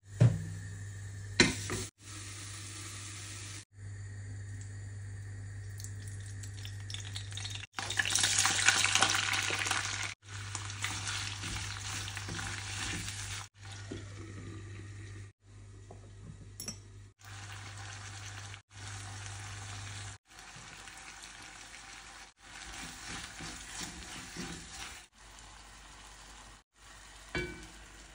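A series of short cooking sounds on a gas hob: two sharp clanks of metal cookware set down on the grates near the start, then food sizzling and frying in a pan, loudest about eight seconds in. A steady low hum runs under the first two-thirds.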